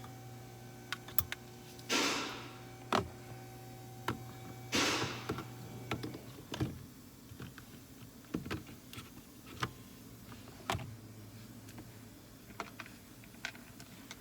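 Hand work on plastic interior parts and wiring connectors: scattered sharp clicks and taps, with three brief swishing scrapes in the first five seconds. A steady low hum runs underneath and stops about eleven seconds in.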